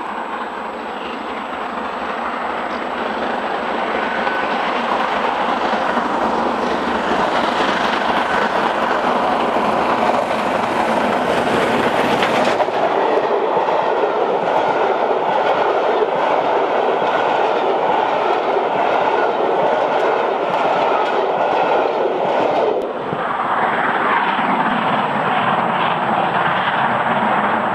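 Steam locomotive LMS Jubilee 5XP No. 5690 'Leander', a three-cylinder 4-6-0, working hard, growing louder as it approaches and passes close. Its coaches then roll by with a clickety-clack of wheels over the rail joints.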